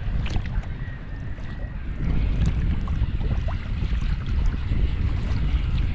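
Wind buffeting the microphone with a steady low rumble, over water slapping and splashing against a kayak with scattered small ticks.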